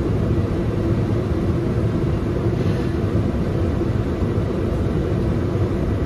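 Tractor and nearby combine engines running, a steady low rumble with a constant hum, heard from inside the tractor cab.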